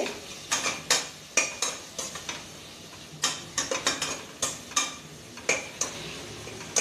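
A spoon scraping and knocking against the metal bottom and sides of a pressure cooker while a thick onion-tomato masala is stirred, in irregular strokes, over a faint sizzle of frying.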